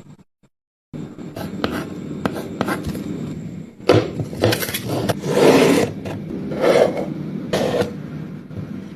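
Wooden skirting moulding scraping and rubbing as it is worked, starting about a second in, with four or five louder scraping strokes in the second half.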